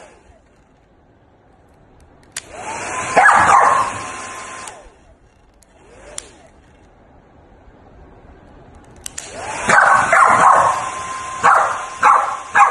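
A corgi barks and howls in two spells, about three seconds in and again from about ten seconds in. Each spell goes with a steady hissing whir from a machine that switches on abruptly; the first whir stops after about two seconds.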